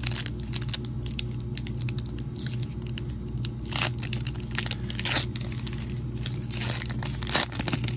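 Plastic-foil wrapper of a Panini Prizm Draft Picks trading-card pack being torn open by hand, crinkling and crackling, with louder tears about four, five and seven seconds in. A steady low hum runs underneath.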